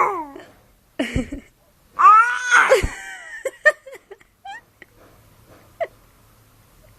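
A young baby, 11 weeks old, cooing and squealing in short high-pitched calls: one about a second in, a longer arching one around two to three seconds, then several brief chirps.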